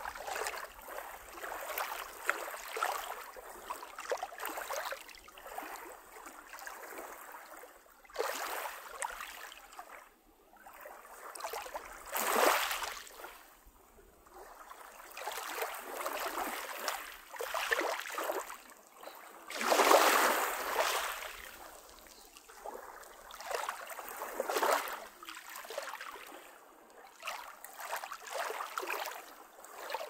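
Small waves of a calm sea lapping onto a pebble beach, washing in over the stones and drawing back in surges every few seconds. The biggest washes come a little under halfway through and about two-thirds through.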